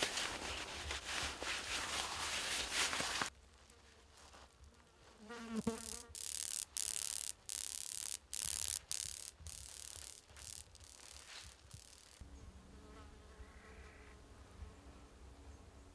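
Insects buzzing: one passes close with a wavering pitch about five seconds in, chopped bursts of higher buzzing follow, and a fainter steady buzz hangs on near the end. The first three seconds are a louder rustling.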